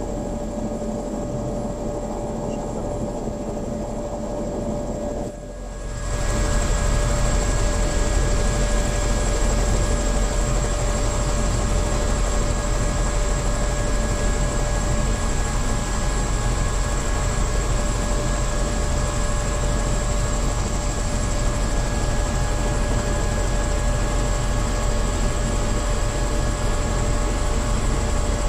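Helicopter turbine engine and rotor running on the ground, heard from inside the cabin: a steady whine with a few held tones over a dense rumble. About five seconds in the sound dips for a moment, then comes back louder and holds at the higher level.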